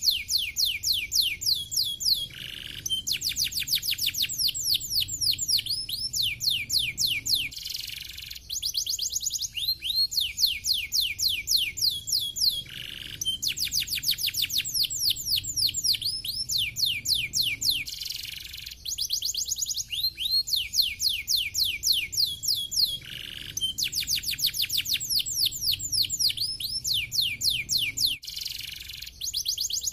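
Domestic canary singing: long phrases of rapid trills made of quick falling whistled notes, broken about every five seconds by a short, lower buzzy note.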